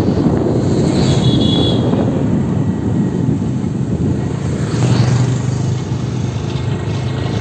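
Motor vehicle running, a steady low rumble of engine and road noise, with a brief high tone about a second in.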